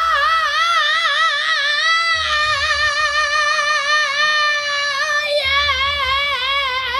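A man's high-pitched heavy-metal falsetto wail, held long with a wide, fast vibrato and broken only by two short catches about two and five and a half seconds in.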